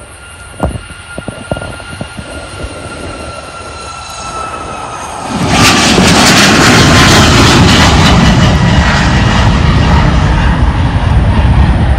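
Southwest Boeing 737 jet airliner on takeoff: a steady engine whine that falls slightly in pitch, then about five and a half seconds in a sudden, very loud jet roar as the aircraft passes close overhead, lasting through the rest.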